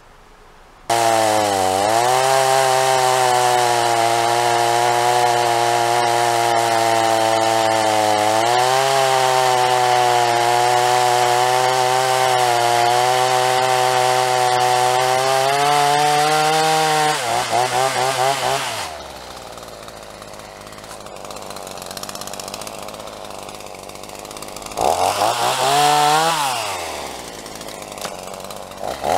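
Two-stroke chainsaw running at high revs, cutting into a felled tree, starting abruptly about a second in. After about seventeen seconds it drops to idle, gives one short rev that rises and falls, then goes back up to high revs near the end.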